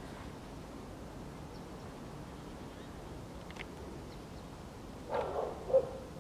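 Siberian husky puppy giving two short, high-pitched yips about five seconds in, the second the louder, after several seconds of quiet background.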